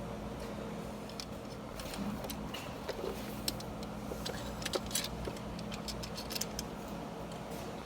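Irregular light metallic clicks and taps from hand tools and small engine valvetrain parts being handled, over a steady low hum.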